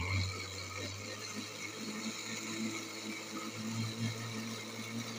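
National electric blender running steadily, grinding soaked rice in milk: an even motor hum with a low drone under the churning of the liquid.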